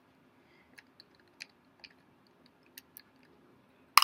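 Scattered light clicks and taps from handling small screws and a precision screwdriver on an old white MacBook's case, with a sharper cluster of clicks at the very end.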